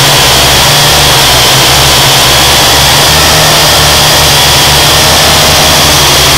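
Quadcopter drone's electric motors and propellers whining steadily, picked up very loud by its own onboard camera, several steady tones over a hiss, with gusty wind buffeting the microphone.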